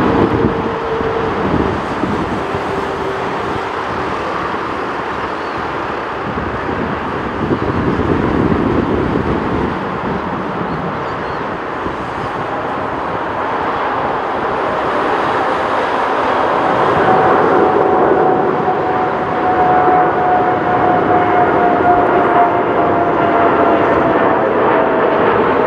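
Boeing 787 airliner jet engines at takeoff thrust through the takeoff roll and climb-out: a steady rushing noise with a whine that slowly drops in pitch in the second half, growing louder as the plane climbs past overhead.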